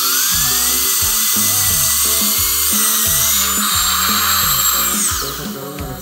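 High-speed dental drill whining as its bur cuts a tooth: it spins up in pitch at the start, holds a steady high whine, and winds down a little after five seconds in.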